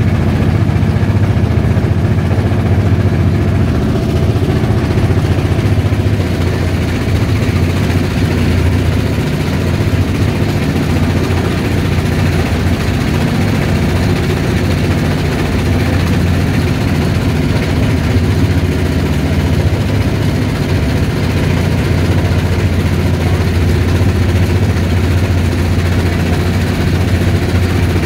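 Engine of a small wooden motorboat running steadily under way, heard loud from on board as an even, unchanging drone.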